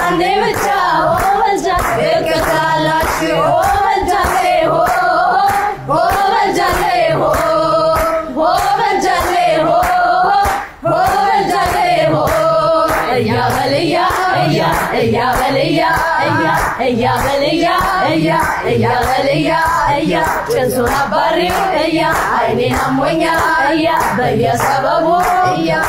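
Women singing an Amharic song together, keeping time with a steady beat of hand claps.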